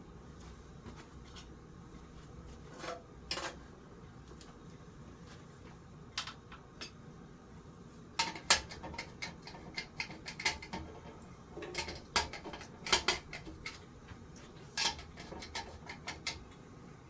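Irregular metallic clinks and taps of hand tools and small metal parts of a ceiling fan being handled during disassembly and oiling. They come in scattered clusters, busiest in the middle and later part.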